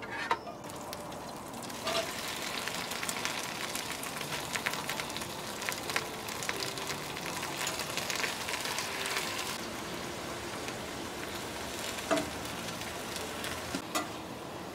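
Cabbage sizzling and crackling as it stir-fries in a hot stainless steel skillet, building up about two seconds in, with a spatula now and then knocking and scraping against the pan.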